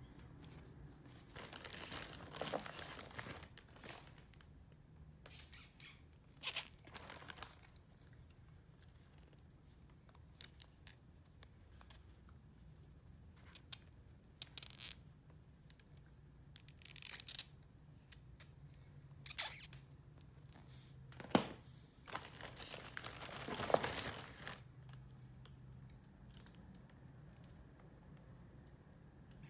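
Hands handling plastic fashion dolls and their fabric clothes: scattered rustles and scrapes, with a few sharp clicks and a longer rustle about two-thirds of the way in.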